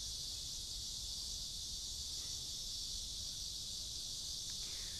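Steady, high-pitched drone of an insect chorus, an unbroken shrill hiss with no change in level.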